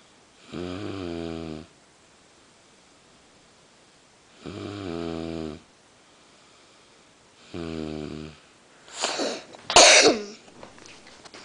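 A sleeping woman snoring: three deep, pitched snores, each about a second long and spaced about three and a half seconds apart. Near the end come louder, rough bursts of breath.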